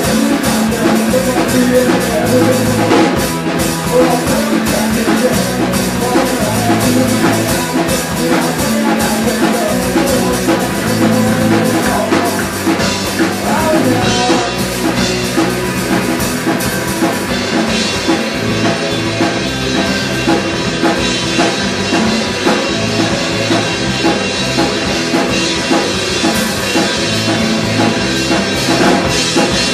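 A live rock band playing a song: drum kit, electric guitar and bass guitar, loud and steady with a driving beat.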